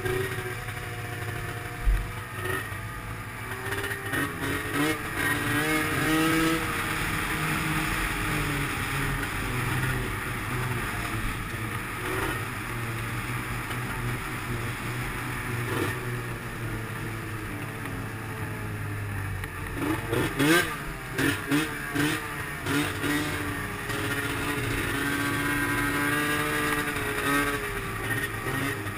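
Arctic Cat M7 snowmobile's two-stroke engine running under way, its pitch rising and falling with the throttle. About twenty seconds in it revs quickly up and down several times.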